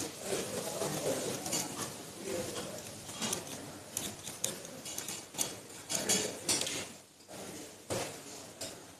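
Kitchen clatter: metal utensils and dishes clinking and knocking irregularly against steel worktops and plates.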